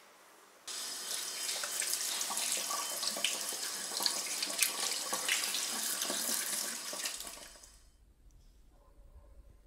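Kitchen tap running into a sink, with the water splashing as a toothbrush is rinsed under the stream. It starts abruptly about a second in and fades out about seven seconds in.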